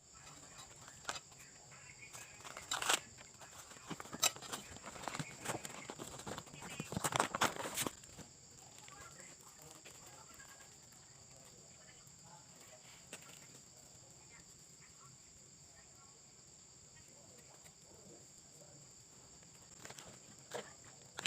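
Scattered soft clicks and rustles for about the first eight seconds, then quiet with only a faint steady high-pitched hum underneath.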